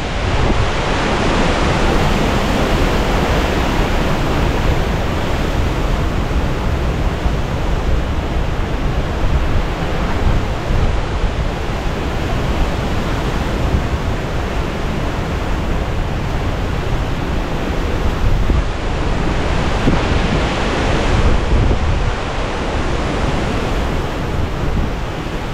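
Hurricane-force wind from Hurricane Ian's eye wall blowing hard and steadily, buffeting the microphone.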